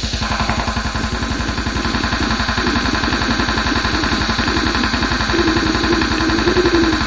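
Cybergore grind noise music: harsh distorted noise over a very fast, machine-even drum pulse of about a dozen hits a second, with a held low tone coming in over the last two seconds.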